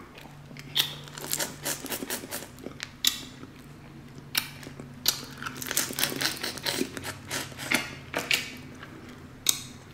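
Boiled crawfish being cracked and peeled by hand close to the microphone: irregular small crackles and sharp snaps of shell, with a few louder snaps, and chewing between.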